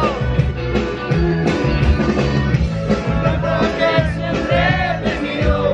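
Rock music with a singing voice over a bass line.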